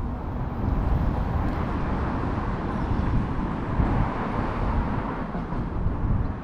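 Steady rumble of road traffic on the highway overpass overhead, heard from beneath the bridge.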